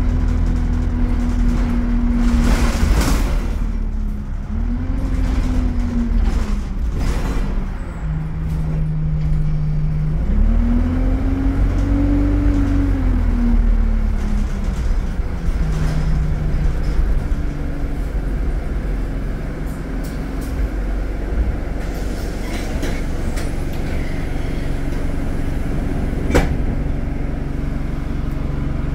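Alexander Dennis Enviro200 single-deck bus heard from inside the saloon: a heavy engine rumble with a drivetrain tone that rises and falls several times as the bus speeds up and slows down. A few sharp rattles or knocks come through, the loudest near the end.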